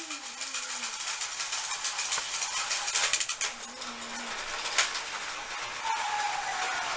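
Battery-powered Plarail toy trains running on plastic track: a steady clattering rattle of wheels and motors on the rails, with many small clicks and a few sharper ones, busiest about three seconds in.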